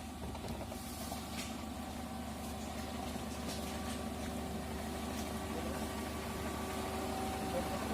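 Suzuki Jimny 4x4's engine running steadily at low revs, a constant hum with a few steady tones, slowly growing a little louder.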